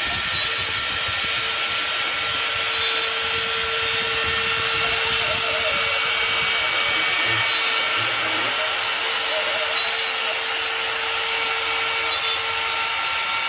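CNC router spindle running steadily while the bit cuts a wooden pattern: a high whine with a hiss, shifting slightly in tone every two to three seconds as the cut moves.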